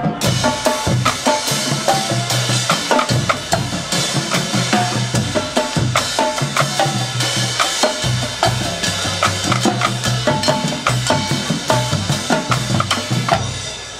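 Marching drumline playing a fast cadence: snare drums rattling over pitched low bass-drum notes, with crash cymbals clashing.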